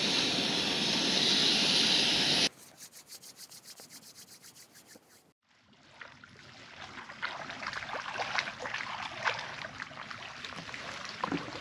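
Food sizzling in a pan on a portable propane camp grill, cutting off abruptly after about two and a half seconds. A few seconds of quick pulsing and a brief silence follow. Then lake water laps at a rocky shoreline, slowly growing louder.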